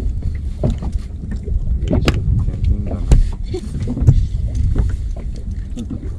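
Steady low rumble of wind and water around a small open boat, with a few scattered knocks and clicks as fishing tackle is handled.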